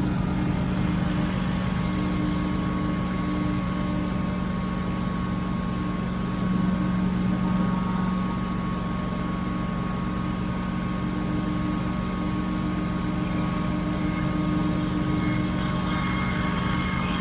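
Scag Windstorm debris blower running steadily at working speed while blowing leaves: a constant engine drone with a steady high fan whine over it, swelling briefly about a third of the way in.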